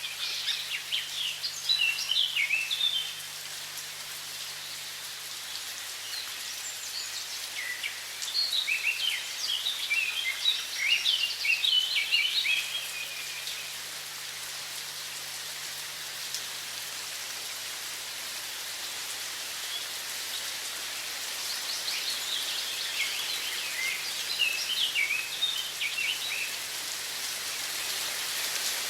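Running water with a steady hiss, and songbirds singing in three spells of quick, high chirps: at the start, around the middle and again toward the end.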